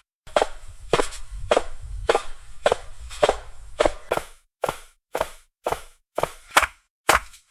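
Footsteps on a passenger gangway: a steady walking pace of a little under two sharp steps a second. Under the steps a low rumble runs through the first half and then stops, leaving the steps alone.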